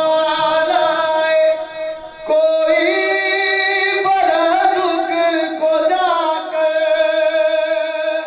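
A man's solo voice singing a devotional Urdu manqabat in a drawn-out, melodic style, holding long notes that waver slightly in pitch. There is a brief break for breath about two seconds in.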